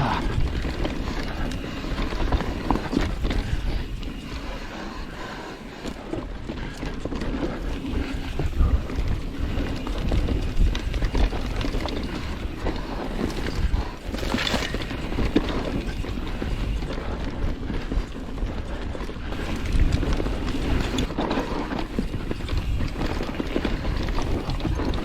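Mountain bike being ridden along a dirt singletrack: tyres on dirt and the bike clattering over bumps, a run of irregular knocks over a low rumble.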